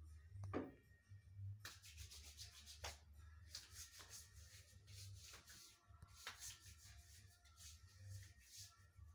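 Near silence: a faint low hum with scattered soft clicks and rubbing noises, and a brief falling sound about half a second in.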